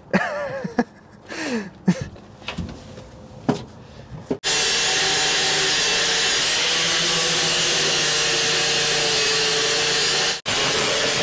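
Handheld electric cut-off grinder running steadily with a constant whine, cutting through the rusted sheet-metal cab floor. It starts abruptly about four seconds in and breaks off for an instant near the end. Before it starts there are only scattered clicks.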